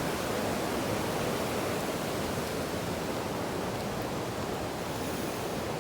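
Steady rush of a fast river running high after rain.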